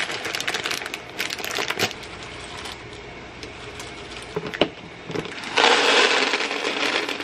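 Dry Texaroni pasta being poured, with the plastic bag crinkling: scattered clicks as pieces drop into the pot, then about five and a half seconds in, a dense, continuous rattle as a stream of dry pasta pours into a clear plastic container.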